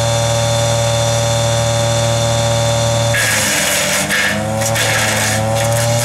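Truxor DM 5000 with its hydraulically driven wood chipper running with a steady pitched hum. About three seconds in, the pitch sags and climbs back, with added hissing and crackling.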